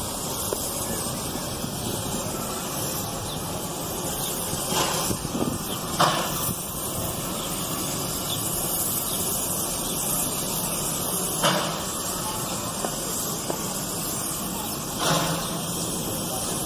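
Steady wind rushing over the microphone, with a few brief stronger gusts.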